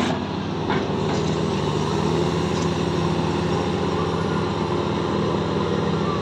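Diesel engine of a MAIT hydraulic piling rig running steadily as the rig lifts its drilling tool out of the bore, with one light knock under a second in.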